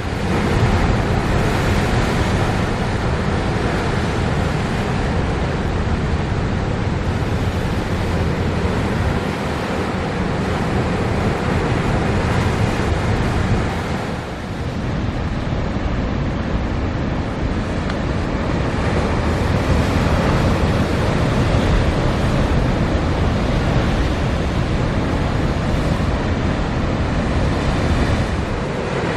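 East Sea surf pounding the shore in strong winter wind, a steady loud rush of breaking waves with wind buffeting the microphone. It eases briefly about halfway through.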